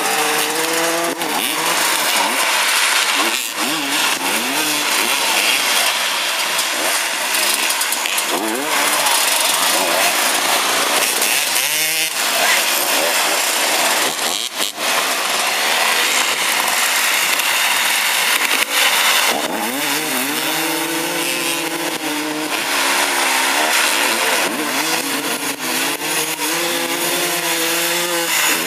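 Several dirt-track racing motorcycle engines running hard, their pitch rising and falling as the bikes accelerate and ease off, with spells of engines held at steady high revs.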